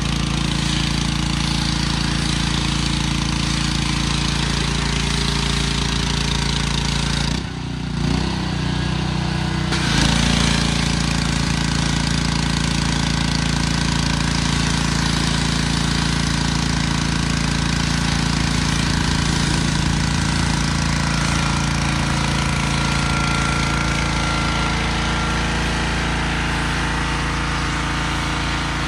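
Small gas engine of a pressure washer running steadily, with the high-pressure water jet spraying against the car body. About seven seconds in, the spray stops for around two seconds while the engine runs on, then starts again.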